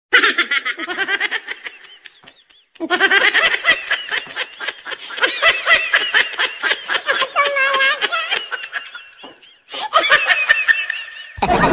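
High-pitched laughter in rapid, pulsing fits, breaking off for about a second near two seconds in and briefly again near the end.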